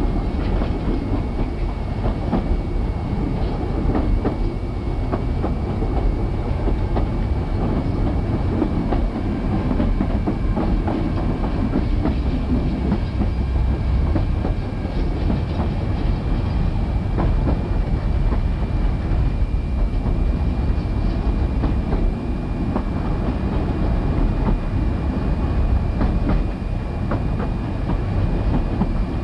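Narrow-gauge passenger train running slowly, heard from on board. There is a steady rumble of wheels on rail with irregular clicks over the rail joints and points, and a thin steady high whine runs through it.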